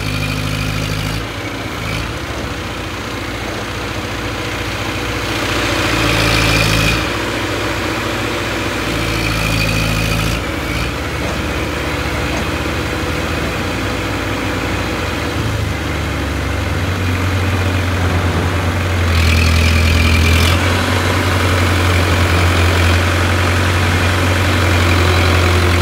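Diesel engine of a mobile crane running steadily under load, its speed stepping up and down several times, with a brief higher whine about 6, 10 and 19 seconds in.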